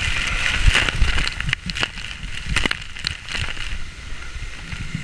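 Water rushing and splashing down a water slide as a rider slides through it, with a low rumble and a scatter of sharp knocks from the body bumping along the slide's surface. It is loudest about a second in.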